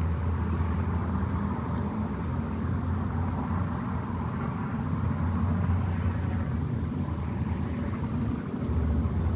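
Steady low outdoor rumble with a faint hiss above it, even in level throughout.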